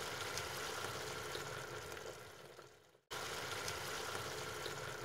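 Pan of onion sauce sizzling and bubbling on the stove as chicken broth is ladled in. The sound fades and cuts off about three seconds in, then starts again at once.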